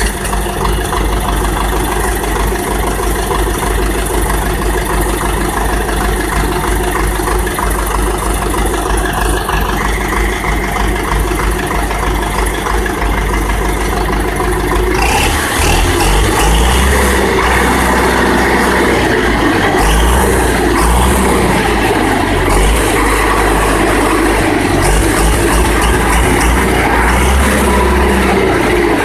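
An old YUMZ tractor is being started with its small two-stroke pony engine, which runs steadily while the levers on the engine are worked. About halfway through, the engine sound becomes louder and fuller and stays that way.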